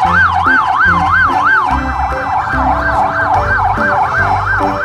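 Electronic police-style siren wailing rapidly up and down, about three sweeps a second, growing thinner and doubled from about two seconds in. Background music with a steady beat plays underneath.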